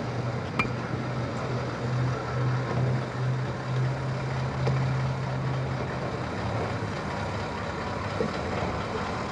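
Heavy lorry's engine running at low speed, a steady low hum over road noise that fades away about two-thirds of the way through.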